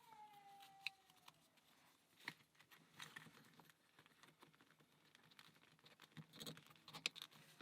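Near silence with a few faint, scattered clicks and taps of laser-cut plywood puzzle parts being handled and fitted together.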